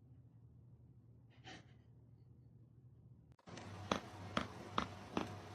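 Near silence with one faint breathy puff, then about three and a half seconds in a hissy track starts with a steady beat of sharp ticks, about two and a half a second.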